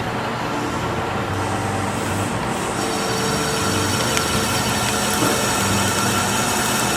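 Metalworking machine tool running steadily for drilling or boring, a motor hum under a high whine. About three seconds in, more high-pitched tones join.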